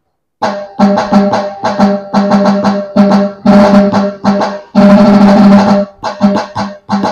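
Roland HandSonic electronic hand-percussion pad played with the fingertips, sounding a Puneri tasha drum: fast, stick-like strokes in a driving rhythm, with two dense rolls in the middle.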